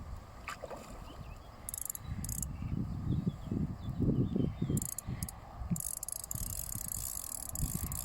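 Fishing reel ratcheting in short buzzy bursts, the longest running for almost three seconds near the end, as a hooked carp takes line. Low knocks and rumbles from handling or wind on the microphone run underneath.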